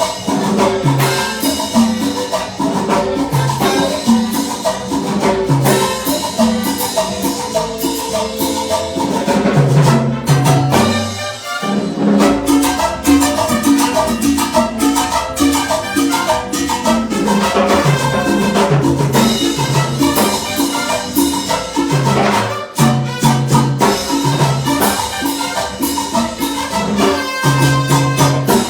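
A live band plays an instrumental salsa-style tune during a sound check, with no vocals. A repeating bass line and percussion keep a steady beat, and the band drops out briefly about 11 seconds in and again near 23 seconds.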